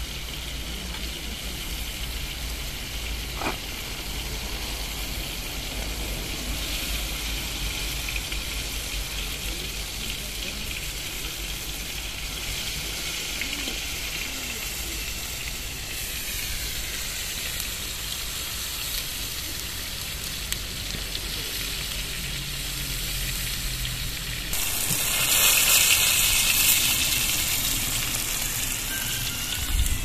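Food slices sizzling in a wok-style pan over a wood campfire: a steady frying hiss that swells louder for a few seconds near the end.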